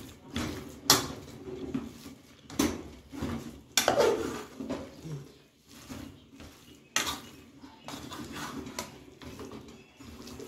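A spoon knocking and scraping against a cooking pot during stirring, with about five sharp clinks at irregular intervals.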